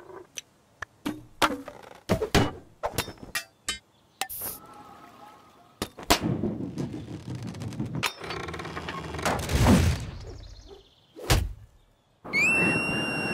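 Cartoon sound effects: a quick run of knocks and thuds, a busier clattering stretch in the middle, one more hit, then a long high steady tone near the end.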